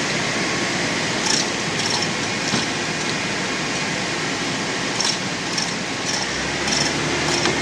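Steady rushing noise with short, light metallic clinks every half second to two seconds.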